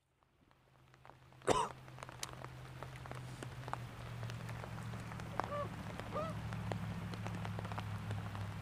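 Heavy rain pouring onto a lake and onto the boat, with many close drops ticking, fading in from near silence over the first few seconds. A loud knock comes about a second and a half in, and two brief bird calls come close together near the middle.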